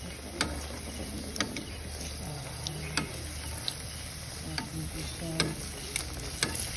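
Banana halves frying in hot oil in a pan, a steady sizzle, with several sharp clicks and knocks of a utensil against the pan as the pieces are turned.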